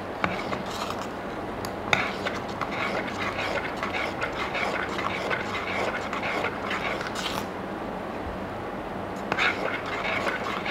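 A spoon stirring thick barley porridge in a stainless-steel electric pot, a steady run of small scrapes and clicks against the metal.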